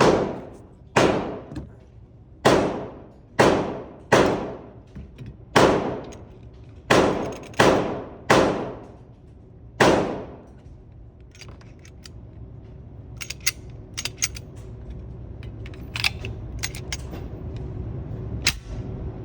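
Gunfire at a shooting range: about ten shots, roughly a second apart, each with a long echoing tail. After that, light scattered clicks and knocks until the end.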